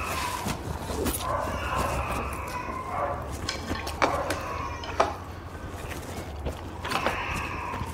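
People eating instant noodles with chopsticks: slurping and chewing, with several sharp clicks of chopsticks against the bowls and pan. Short, wavering high whining tones come and go.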